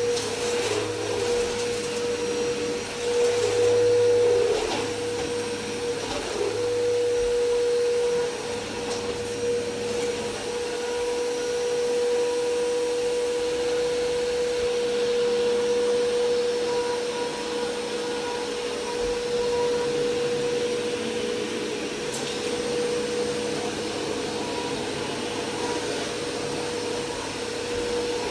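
Vacuum cleaner motor running steadily with a constant hum and airy rush, its loudness swelling and easing a little as it is used.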